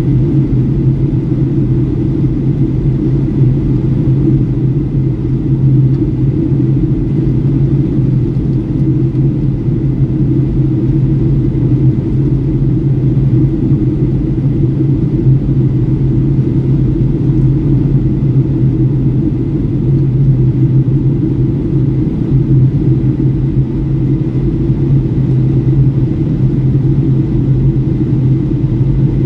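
Steady low drone of a Boeing 757-300's cabin in flight: engine and airflow noise heard from inside, unchanging throughout.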